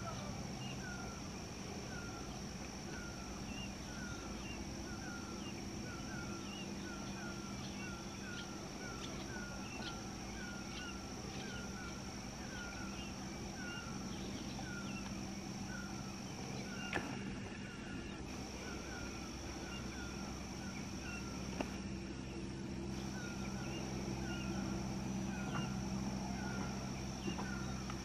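Brown bullfinch calling: a short, falling whistled note repeated about once or twice a second, over a steady low hum and a steady high-pitched tone. Two sharp clicks come in the second half.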